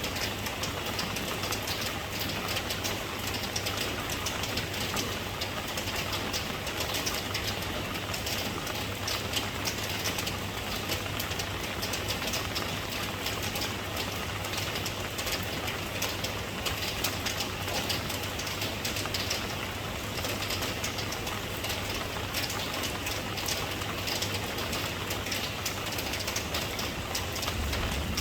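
Steady rain falling, with many small drop ticks over an even hiss and a constant low rumble underneath.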